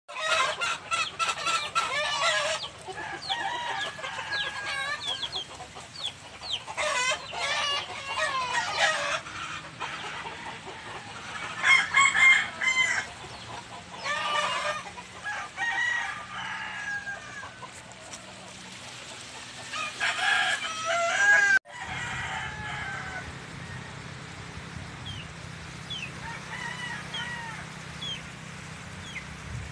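Chickens calling: roosters crowing again and again with clucking, in clusters of overlapping calls. The sound cuts out suddenly about two-thirds through, and after that fainter calls carry on over a steady low rumble.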